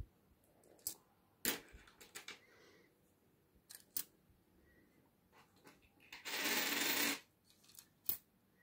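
Coins clicking as they are set down one at a time onto a heap of coins in an aluminium-foil boat: several sharp separate clicks. A louder rustle lasting under a second comes a little past the middle.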